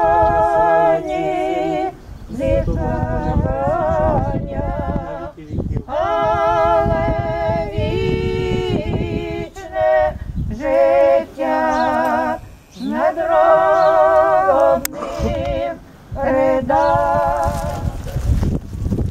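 Women's and men's voices singing an unaccompanied Orthodox funeral chant, in long held notes with vibrato, phrase after phrase with short breaks between them.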